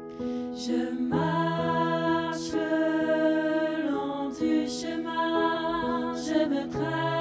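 Vocal ensemble singing a four-part SATB choral arrangement in French, apparently a cappella. The full chord with a low bass note comes in about a second in, and sibilant consonants cut through every second or two.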